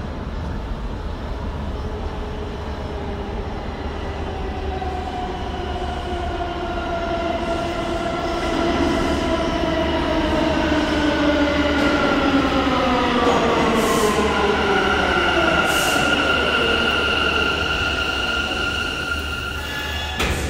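New York City Subway A train pulling into the station: a rumble growing louder as it approaches, with an electric whine falling in pitch as it brakes. A steady high squeal follows as it slows to a stop, and a sharp click comes just before the end.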